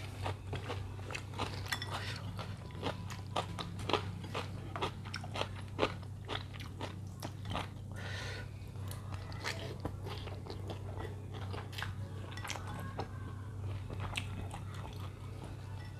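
Close-miked mouth sounds of eating bakmie noodles with toppings: steady chewing and biting with many quick, sharp crunchy clicks, over a low steady hum.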